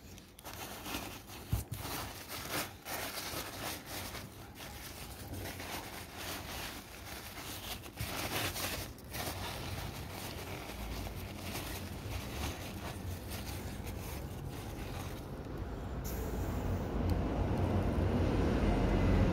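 Crumpled packing paper rustling and crinkling in irregular bursts as a hand digs through it in a cardboard box. A low rumble builds near the end.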